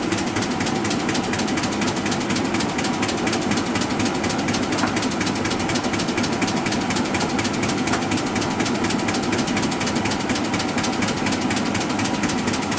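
Arter A3-12 rotary surface grinder running steadily, its flat-belt spindle drive clicking rapidly and evenly as the seam in the belt passes round.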